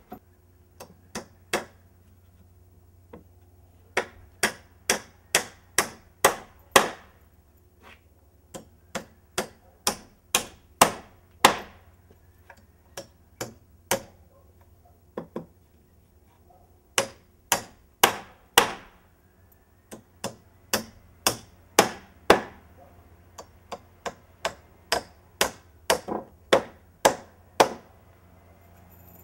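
Hand hammer driving nails into wooden framing studs: runs of blows at about two a second, each run starting with lighter taps to set the nail and building to harder strikes, with short pauses between nails. Some nails are toenailed at an angle through the stud into the sole plate.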